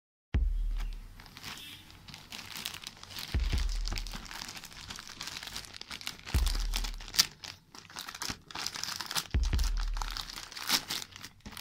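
Plastic courier mailer bag crinkling and tearing as it is handled and opened by hand, with sharp crackles throughout and a few dull thumps about three seconds apart.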